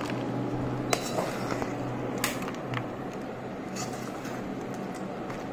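Sticky, syrup-coated panjeeri mixture being scraped with a spatula out of a nonstick pan into a steel plate, with a few light clinks of utensil on metal about one, two and four seconds in, over a steady low hum.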